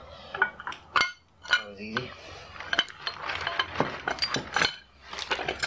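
Metal valve-train parts of a 1981 Honda GL1100 Gold Wing engine clinking and clattering as the assembly is pulled off the cylinder head and handled: a string of sharp clinks and knocks, some briefly ringing.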